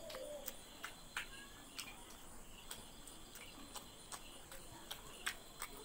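Close-up eating sounds of a person chewing and working rice and curry by hand: a run of irregular, faint, sharp mouth clicks and smacks. Behind them is a steady faint high-pitched hum.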